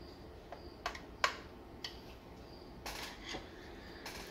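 Several small sharp clicks and taps of a Torx screwdriver against the screws and metal flat-cable clamp on an instrument housing, the loudest about a second in. About three seconds in come a couple of short scuffs as the housing is handled and turned.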